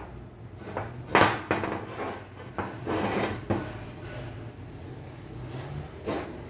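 A disassembled car air-conditioning compressor and its parts being handled on a workbench. There are a few sharp knocks about a second in, a stretch of rubbing and scraping around three seconds, and another knock near the end.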